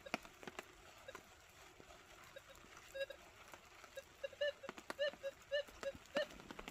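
A dog sniffing and digging with its nose in a hole in loose dirt, making scattered scratchy clicks and snuffles, while a string of short pitched tones sounds, coming more often over the last few seconds.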